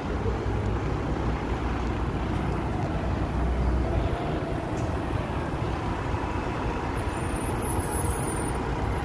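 Buses passing close by on the road: a single-deck bus's engine rumble and tyre noise swell as it pulls past, then an Alexander ALX400 double-decker runs up behind it, with a faint steady whine coming in about halfway.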